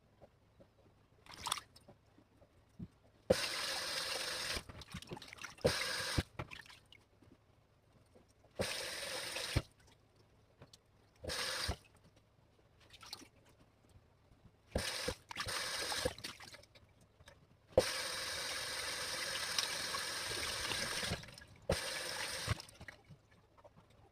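Water running from a tap in several bursts, the longest about three seconds, with short splashes and knocks in between.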